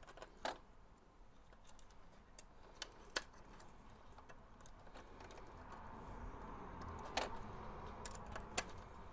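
Small metal fittings clicking and tapping as nuts and a little fixing bracket are worked on by hand on a scale model tank's hull: scattered sharp clicks a second or more apart, over a faint rustle that grows in the second half.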